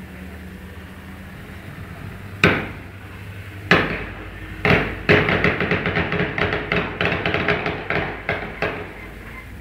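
Gunfire: three separate shots a second or so apart, then a long burst of rapid automatic fire lasting nearly four seconds.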